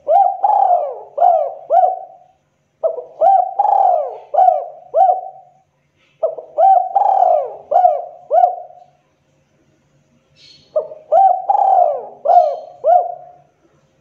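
Spotted dove (tekukur) cooing: four phrases a few seconds apart, each a run of four or five quick rising-and-falling coos. It is the sharp call of a dove in breeding condition.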